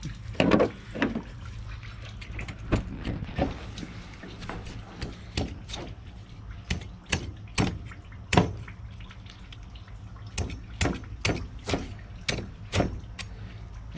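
Machete chopping repeatedly into the armored hide of an alligator gar just behind the head: a series of sharp, wet strikes at an uneven pace of about one or two a second, over a steady low hum.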